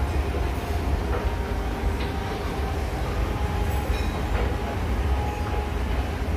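Long escalator running under the rider: a steady low rumble with a faint whine over it.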